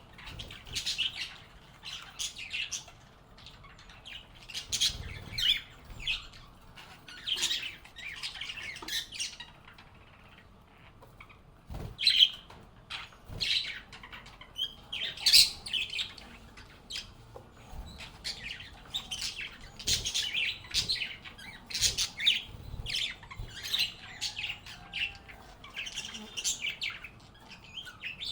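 A group of lovebirds chirping and squawking, giving short, shrill calls in quick runs. There is a brief lull near the middle and a single sharp knock just after it.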